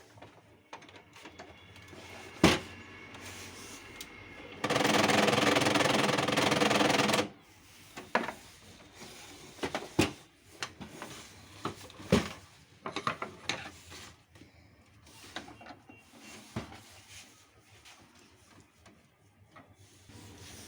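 Canon LBP 2900 laser printer's drive running for about three seconds with a loud mechanical gear noise, the sign of a faulty motor gear. Scattered sharp clicks and knocks come before and after it.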